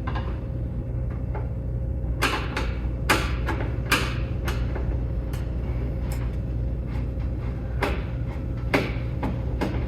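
Sharp, irregular clicks and clanks of hand tools and sheet-metal casing parts being handled as screws come out of a plasma cutter's housing, over a steady low hum.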